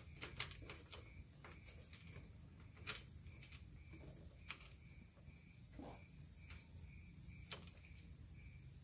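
Near silence: a few faint clicks and taps of a plastic oil filter housing cap being screwed on by hand, over a faint steady high-pitched tone.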